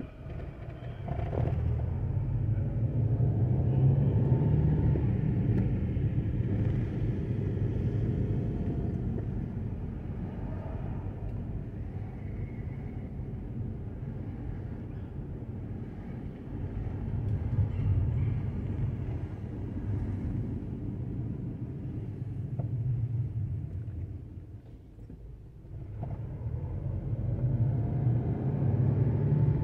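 Car engine and tyre noise, a low rumble that swells as the car pulls away from a stop about a second in, eases off while cruising, dips to a lull a few seconds before the end and swells again as it moves off.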